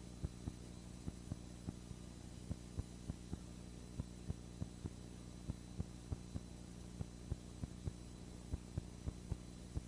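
Steady electrical hum with faint hiss, broken by small clicks and pops at uneven spacing, about two or three a second: the background noise of an otherwise empty soundtrack, with no sound from the paddling itself.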